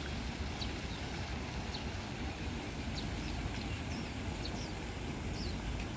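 Small birds chirping in short, high calls, more often in the second half, over a steady hiss and low rumble of water falling from garden fountains.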